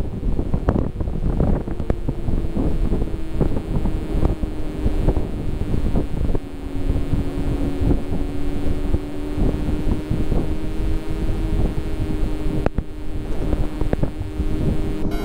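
Royal Enfield Himalayan's 411 cc single-cylinder engine running steadily while the motorcycle is ridden, under heavy wind buffeting on the microphone.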